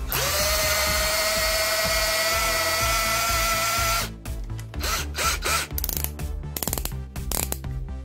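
Bosch GSR 14.4-2 cordless drill, freshly repaired, spinning up and running steadily at no load for about four seconds with its whine creeping slightly higher, then stopping abruptly. It is followed by a run of irregular clicks as the chuck is twisted by hand.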